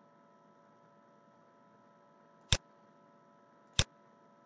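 Two sharp computer mouse clicks about a second and a quarter apart, over a faint steady electrical hum.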